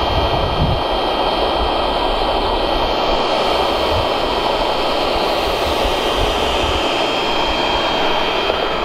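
Electric air pump running steadily, inflating an air mattress: an even whir with a thin high whine.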